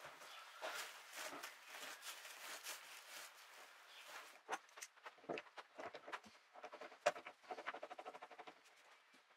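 Steel bar clamps (F-clamps) being set and tightened: faint clicks and knocks of the sliding jaws and turning screw handles, with a quick, even run of small clicks near the end as a screw is spun down. A soft rustle runs under the first few seconds, likely the plastic sheeting being handled.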